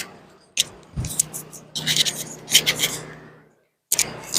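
Clicks, a knock and scraping of hand tools and metal engine parts being handled. It drops to dead silence for a moment near the end.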